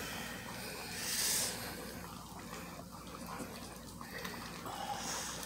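Basset hound puppies eating soft puppy mush from a shared metal dish: wet lapping, smacking and snuffling, briefly louder about a second in.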